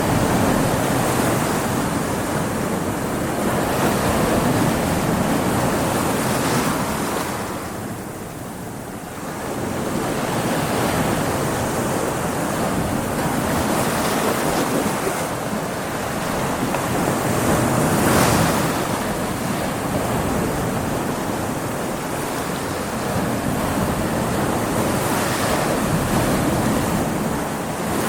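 Stormy sea: waves surging and breaking in a continuous rush that swells and ebbs, dipping briefly about a third of the way in and peaking around two-thirds through, with wind over it.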